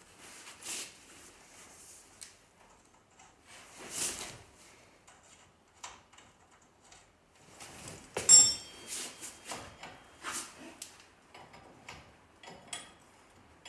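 Hand tools and steel suspension parts clinking, knocking and scraping now and then while a truck's front suspension is reassembled. The loudest is a sharp metal clank with a brief ringing tone about eight seconds in.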